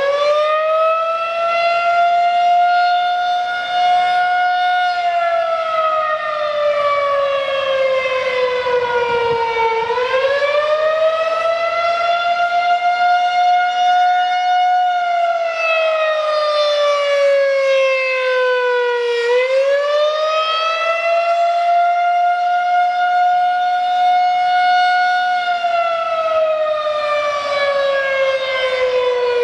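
Federal Signal 2001-SRNB electromechanical warning siren sounding a wail test. It finishes winding up at the start, then its tone falls slowly and rises quickly again about every nine and a half seconds, three full cycles, with a rich set of overtones.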